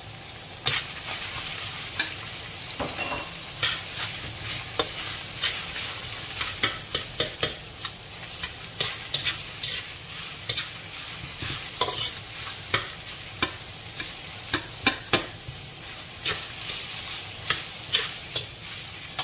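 Metal slotted turner scraping and clinking against a stainless steel wok while stir-frying ground beef with onions, over a steady sizzle. The sharp metal-on-metal clicks come irregularly, about one or two a second.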